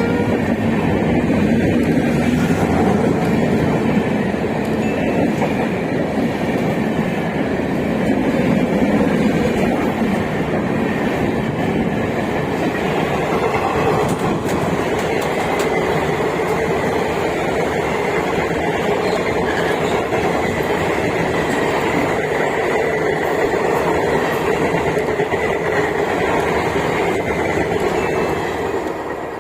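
Indian Railways superfast express train running through the station at speed without stopping, its coaches' wheels clattering over the rail joints in a steady loud rush. There is a faint steady whine from the wheels, and the sound fades near the end as the last coaches go by.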